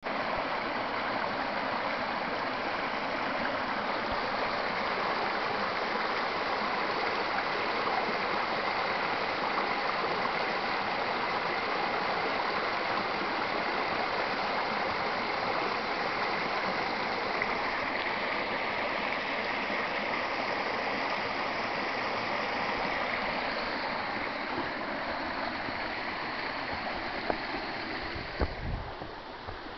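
Water rushing steadily, a continuous stream-like flow. It eases off in the last couple of seconds, with a few sharp knocks and low thumps near the end.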